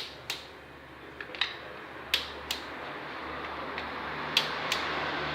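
Torque wrench clicking in short pairs as the valve cover bolts are checked at their set torque of 9.8 N·m, over a low steady hum.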